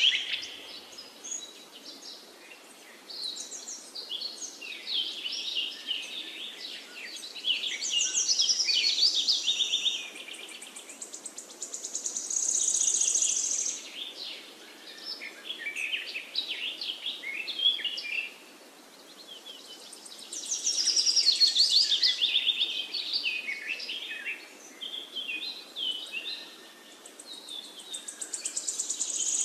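Several birds singing: a changing mix of short chirps and fast, high trills that swell and fade in waves, over a faint steady hiss.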